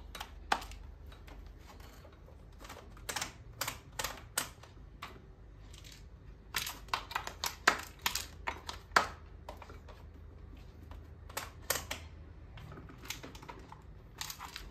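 Irregular sharp plastic clicks and knocks as a fan's plug is pushed into and worked around the sockets of a plastic power strip held in the hands, coming in short clusters.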